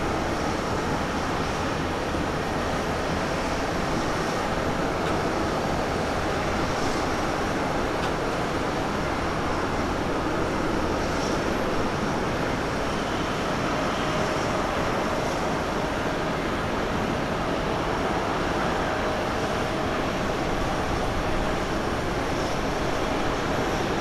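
Steady jet engine roar at low taxi power from a Boeing 777-300ER's GE90 turbofans as the airliner taxis, heard across the airfield as an even rushing noise.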